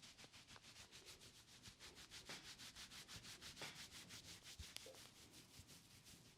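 Hands rubbing rapidly back and forth over hair and scalp in a head massage, about seven strokes a second, faint, with a few small clicks.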